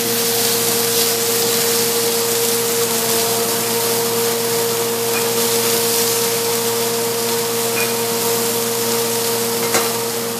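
Stir fry sizzling in a hot pan, a steady hiss, under the even hum of a fan motor.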